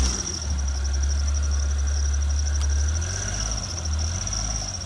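Vehicle engine idling with a low, steady rumble that dips briefly past the middle, under a steady high-pitched pulsing whine.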